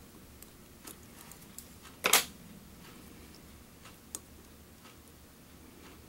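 Small fly-tying scissors snipping off the excess tail fibers at the hook: a few faint clicks and one louder, sharp snip about two seconds in.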